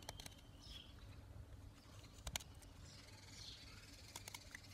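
Taramundi knife blade carving a notch around a small wooden stick: a few faint, sparse clicks of the edge biting the wood, with a sharper pair about two and a half seconds in.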